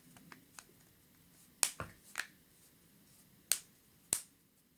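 Sharp plastic clicks and taps from a smartphone being handled: about five distinct clicks spread over the few seconds, with a few fainter ticks near the start.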